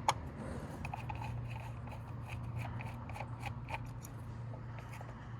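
Ignition coil pack on a car engine being handled and worked loose: a sharp click at the start, then a run of faint, irregular small plastic clicks and rubs over a steady low hum.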